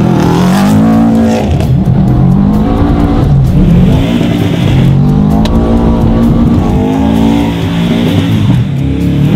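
2014 Subaru WRX's turbocharged flat-four revved hard as the car spins donuts on snow, its pitch rising and falling over and over every second or two.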